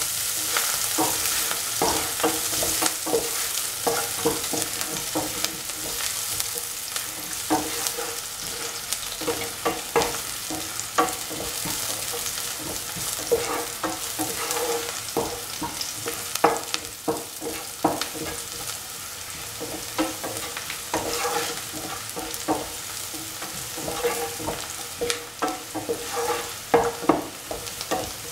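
Sliced onions sizzling as they sauté in oil in a pan, with a utensil stirring them and many short clicks and scrapes against the pan over a steady high hiss.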